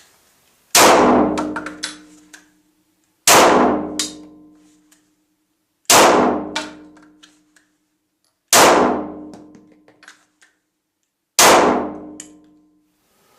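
Five shots from a Glock 17 9mm pistol, fired one at a time about every two and a half seconds. Each shot is a sharp crack followed by a ringing tail lasting about a second.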